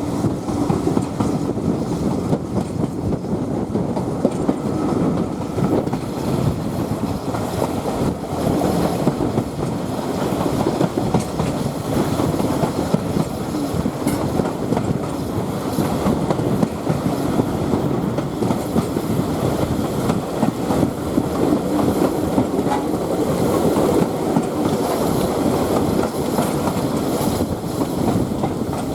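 A heritage railway train running along the line: a steady rumble of wheels on the rails with clickety-clack from the track, continuing without a break.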